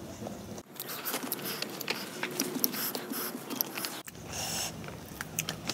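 Close-up eating sounds: a person chewing rice and pork curry with wet smacks and many small clicks, fingers working through the rice. The background changes abruptly twice, about half a second in and about four seconds in.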